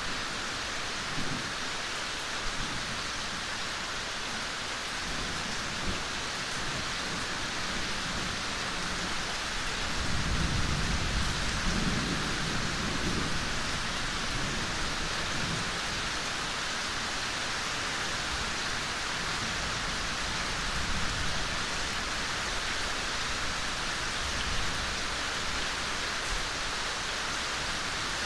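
Steady rain falling in a forest, an even hiss of drops with no breaks. A low rumble swells about ten seconds in and fades a few seconds later.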